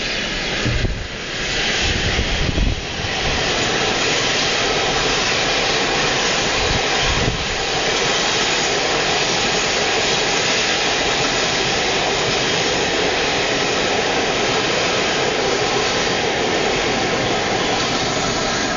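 Class 47 diesel-electric locomotives, with their Sulzer twin-bank diesel engines, hauling a rake of coaches past, making a loud, steady roar of engine and running noise that builds over the first few seconds. A few low thumps stand out early on and once more around the middle.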